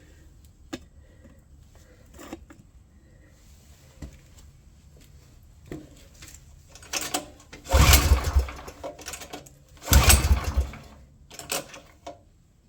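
Small petrol engine of a water blaster being pull-started twice, about two seconds apart. It turns over briefly with a rattle each time but does not catch, with handling clicks and knocks around the pulls.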